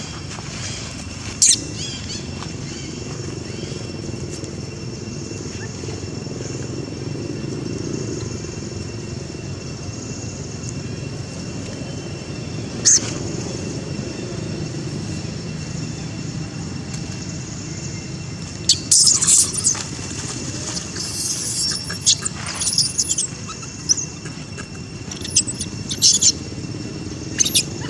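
Outdoor background of a steady low rumble with a faint steady high whine over it, broken by two sharp clicks; from about two-thirds of the way through, a string of short, high-pitched chirps.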